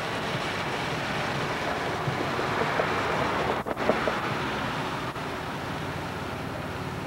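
A stretch limousine driving slowly past: a steady rush of engine and tyre noise, mixed with wind on the microphone. The sound drops out briefly about halfway through.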